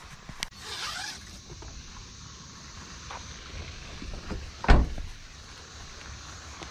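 Fishing rod and reel being handled: a click and a brief whirring sweep near the start, then a single loud low thump a little more than halfway through.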